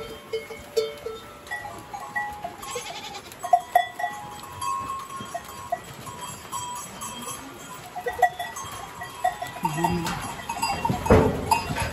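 A herd of goats shifting about in a shed, with scattered clinks of goat bells and a short bleat near the end.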